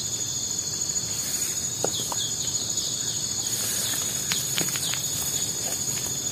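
Steady high-pitched chorus of forest insects, with a few light clicks about four to five seconds in.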